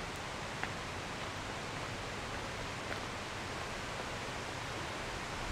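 Steady rushing noise, even and unbroken, with a couple of faint ticks.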